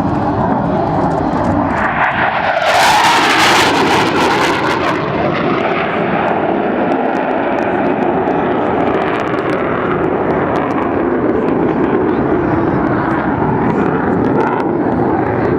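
Panavia Tornado jet's twin RB199 engines passing overhead. The jet noise is loudest and sharpest about three to five seconds in, then carries on as a steady, loud rumble.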